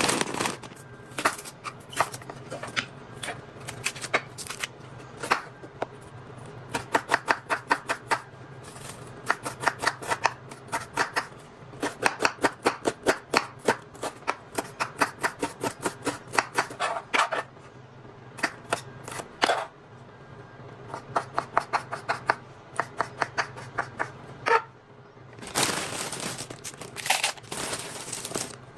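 Knife chopping food on a cutting board in quick runs of even strokes, about two to four a second, with short pauses between runs and a stretch of denser rustling near the end.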